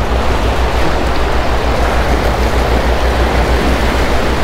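Wind buffeting the microphone in an uneven low rumble, over the steady wash of waves breaking against jetty rocks.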